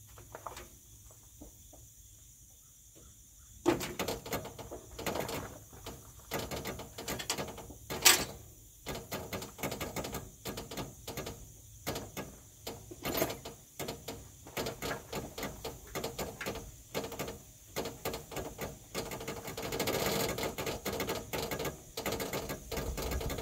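Hand tools working on a semi truck's cab suspension hardware. After a few quiet seconds, a knock about four seconds in starts irregular bursts of rapid clicking and small metal knocks, with one sharp metal clank near eight seconds.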